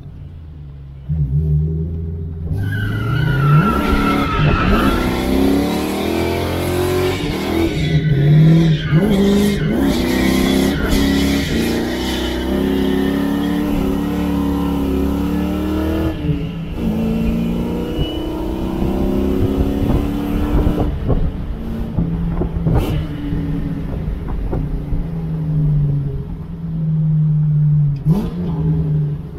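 2001 Ford Mustang GT's 4.6-litre V8, newly swapped to a T45 five-speed manual, accelerating hard: the engine note climbs, drops at each gear change and climbs again. Wind rushes past the open convertible cabin through the middle of the run.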